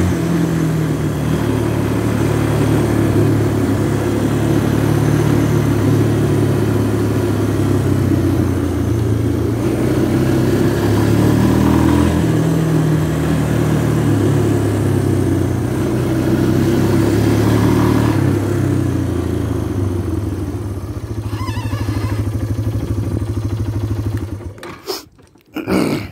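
Yamaha four-wheeler (ATV) engine running while being ridden, its pitch rising and falling with the throttle. About 24 seconds in the engine is shut off, followed by a couple of short knocks.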